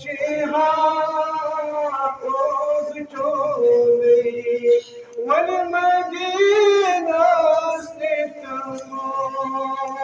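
A man singing a Kashmiri naat, a devotional poem in praise of the Prophet, in long drawn-out phrases with wavering, ornamented pitch and short breaks between lines.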